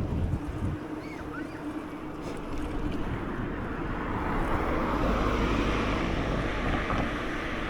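Wind buffeting the microphone and road noise from a moving scooter, with a faint steady engine hum underneath; the rush grows louder about four seconds in.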